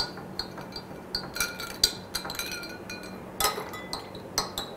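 A metal spoon stirring ice cubes and water in tall drinking glasses, clinking against the glass and the ice in a run of light taps, each with a short glassy ring. A louder cluster of clinks comes about three and a half seconds in.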